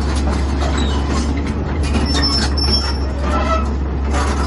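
Caterpillar 320BL crawler excavator running, its six-cylinder diesel engine droning steadily as the boom and bucket move, with short metallic squeals about two and three seconds in.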